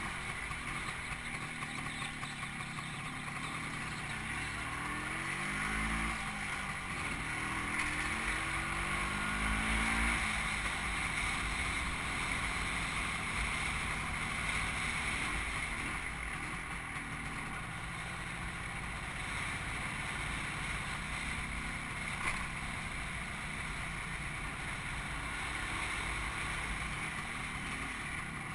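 Motor vehicle engine running while driving slowly along a street. Its pitch rises and falls several times in the first ten seconds, then holds steadier, under a steady hiss.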